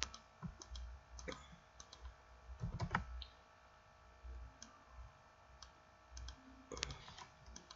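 Faint, scattered clicks of a computer mouse and keyboard keys as a text box is copied, pasted and dragged into place, with a small run of clicks about three seconds in.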